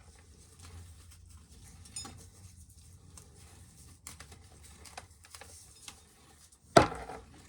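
Faint, scattered clicking and pattering, like dried corn kernels being shelled off the cob by hand and dropping into a pail, with one sharp knock near the end.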